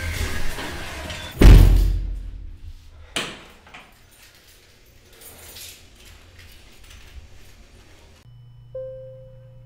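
A heavy door slams shut about a second and a half in, followed by a lighter thud. Near the end a low steady hum sets in, with a brief tone over it.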